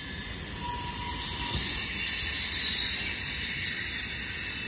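Freight cars of a long train rolling past, their steel wheels squealing against the rail in several steady high-pitched tones over a low rumble.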